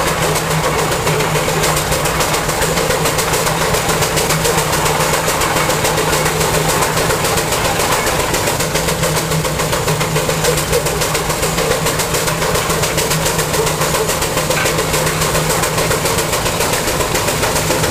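Steam traction engine on tracks running, with a rapid, even clatter over a steady low hum.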